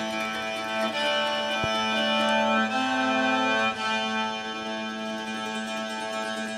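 Instrumental background music: a slow melody of held notes over a steady low drone.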